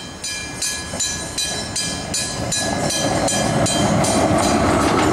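A bell rings in quick, even strokes, about two or three a second, fading away over the last second or so. Under it the running noise of a tram passing close grows louder and takes over.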